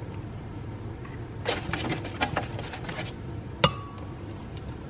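Eggs being cracked on the rim of a glass blender jar: a cluster of shell cracks and clicks in the middle, then one sharp tap with a short glassy ring near the end.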